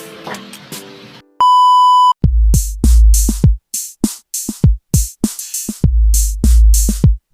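A loud, steady electronic beep lasting under a second, then a hip-hop drum-machine beat with deep bass drum hits and hi-hats.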